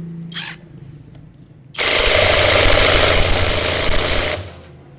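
Power tool running for about two and a half seconds, starting nearly two seconds in, as it tightens a Honda CG 125 rear sprocket bolt. A short click comes about half a second in.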